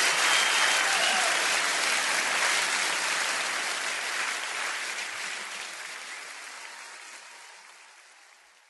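Audience applauding at the end of a live song, fading out steadily to silence.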